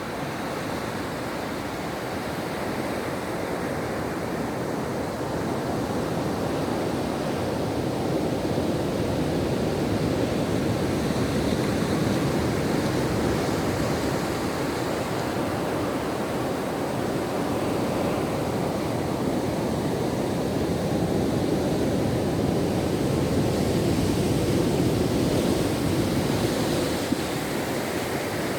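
Ocean waves on a shore: a continuous wash of surf that slowly swells and eases over several seconds at a time.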